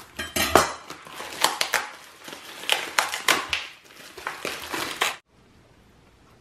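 Thin plastic packaging crinkling and crackling in irregular bursts as a whole raw chicken is worked out of its bag and tray by rubber-gloved hands. It cuts off suddenly about five seconds in.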